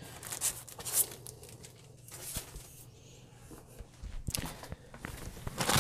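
Plastic-wrapped cross-stitch kit packages being handled: scattered rustles and light knocks, then loud crinkling of the plastic near the end.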